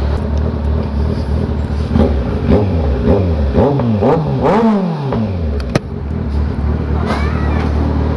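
Kawasaki Z900 inline-four idling through a freshly fitted Orion short 61 mm muffler, then blipped about five times in quick succession, each rev rising and falling, before settling back to idle. A single sharp click follows in the middle.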